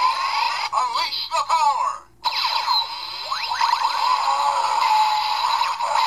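Titano Charge Morpher toy blaster playing its electronic sound effects through its small speaker: a few short warbling chirps, a brief break about two seconds in, then a longer electronic theme with sliding tones that stops near the end.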